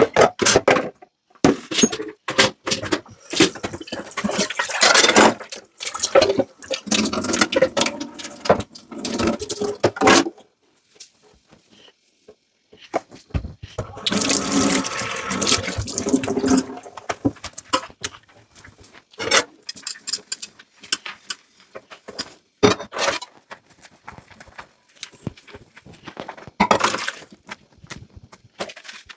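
Kitchen tap water running into a sink in two long spells as dishes are washed and rinsed, with short knocks and clinks of dishes handled in between.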